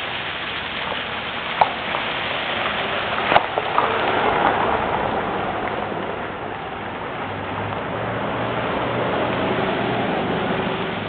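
Ice-coated trees after an ice storm: a steady rain-like hiss of ice, broken by a few sharp cracks, the loudest about three and a half seconds in.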